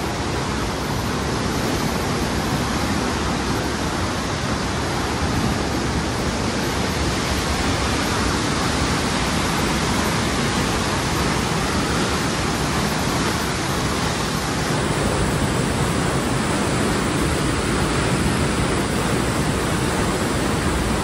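Steady rush of the flood-swollen Koshi River pouring through the barrage gates, with the river running high. It grows a little louder about two-thirds of the way through.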